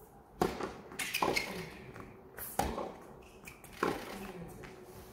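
Tennis ball struck by rackets in a rally on a hard court: the serve pops about half a second in, followed by four more sharp hits and bounces over the next three and a half seconds.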